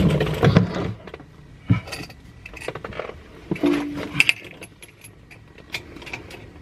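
Scattered metal clinks, clicks and taps as hydraulic hose fittings and a tool are handled under a mini excavator, with a dense cluster in the first second and more clicks about four seconds in.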